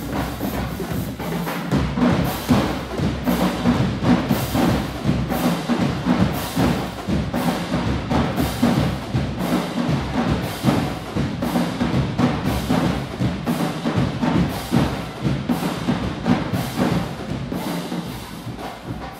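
High school marching band playing, with drums and percussion striking a steady, dense beat over sustained lower band tones.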